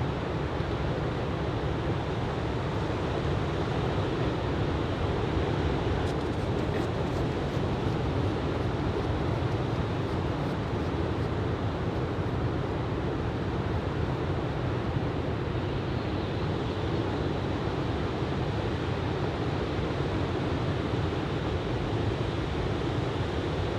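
Ocean surf from a typhoon swell breaking steadily onto the beach, a continuous rushing wash, with wind noise on the microphone.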